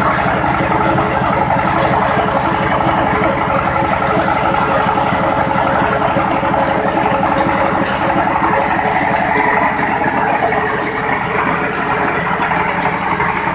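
PL500 pellet mill running steadily: a loud, even machine drone with a fast low pulse and some rattle.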